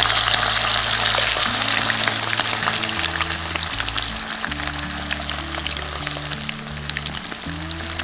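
Hot oil sizzling and crackling hard around frying tofu right after a water-based marinade is poured into the pan, loudest at first and slowly settling as the water boils off.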